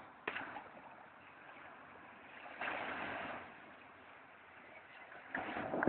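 Faint wash of small waves breaking on a sandy beach, with one louder swell about three seconds in.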